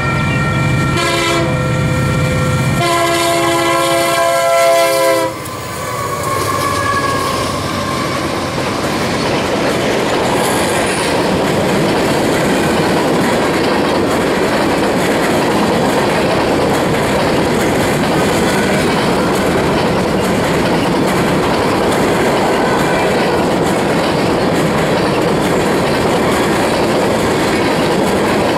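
Multi-chime air horn of a Union Pacific SD70M diesel locomotive sounding at a grade crossing: a short blast, then a long one that ends about five seconds in. After that, the locomotives and then a long string of covered hopper cars roll past, a steady rumble with the clickety-clack of wheels over rail joints.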